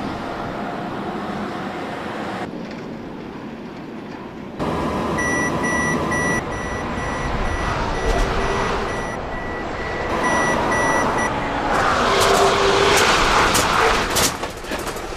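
Truck running, with a rapid series of high electronic warning beeps for about six seconds, the Mercedes-Benz Actros Active Brake Assist collision warning. It is followed by a loud rush of noise with sharp knocks near the end as the truck brakes hard.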